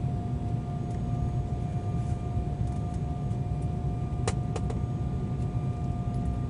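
Steady cabin noise inside an Embraer 190 airliner on landing approach: a low rumble of airflow and engines with a steady whine from its GE CF34 turbofans. Two short clicks a little after four seconds in.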